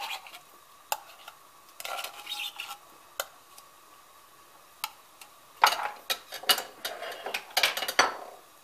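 A metal knife scraping and clicking against the inside of a small tin can as tomato paste is dug out into a steel pot, with a run of louder metal clinks and scrapes in the second half.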